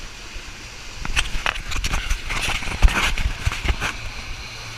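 A quick, irregular run of hollow knocks and thumps on the wooden deck of a water slide tower, starting about a second in and lasting about three seconds, with one heavier thump near the middle.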